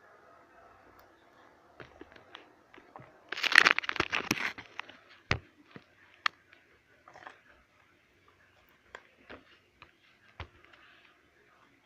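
Glue-and-glitter slime being stirred in a container: scattered clicks and taps from the mixing utensil, with a loud crackly rustle for about a second and a half a few seconds in.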